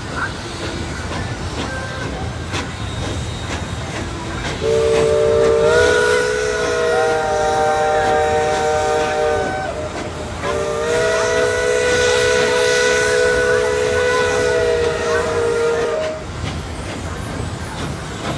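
Narrow-gauge steam locomotive blowing two long blasts on its steam whistle, each sounding several notes at once, over the steady rumble and clatter of the moving train.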